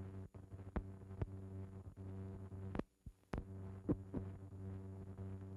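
Steady low hum with crackles and several sharp pops, the surface noise of an old film's optical soundtrack over black leader. The hum drops out briefly about three seconds in.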